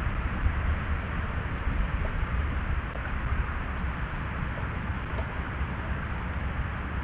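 Steady outdoor background noise picked up by the camera's microphone: a continuous hiss over an uneven low rumble, with a few faint, short high ticks near the end.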